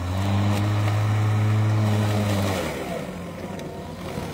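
Stihl battery-powered push mower humming steadily as its motor and blade work through thick, heavy grass on a nearly flat battery; the hum cuts out about two-thirds of the way through, leaving a weaker, rougher sound.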